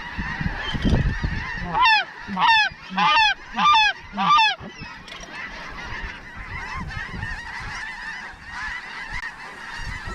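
A flock of snow geese calling continuously, a busy chorus of many overlapping honks. About two seconds in, five loud, close honks come in quick succession.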